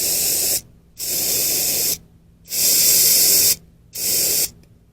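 Aerosol can of brake cleaner spraying in four hissing bursts, each lasting about half a second to a second, with short pauses between them.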